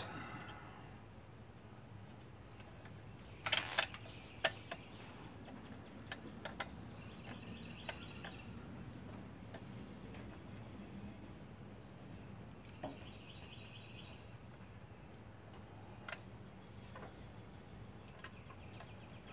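Scattered sharp clinks and knocks of hand work on an engine mount while bolts are fitted, the loudest a quick cluster about three and a half seconds in, over a steady outdoor background of birds chirping.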